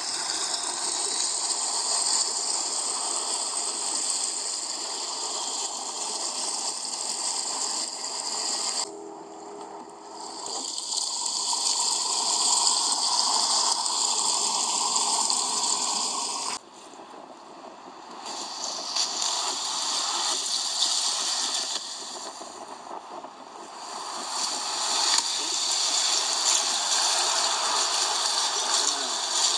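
River water rushing and splashing past a moving boat, with wind noise, as it crosses rapids. The sound drops out abruptly about nine and seventeen seconds in, then builds back.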